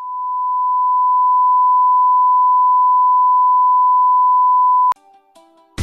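Colour-bar test tone: a single steady beep that cuts off suddenly with a click about five seconds in. A second of faint scattered notes follows.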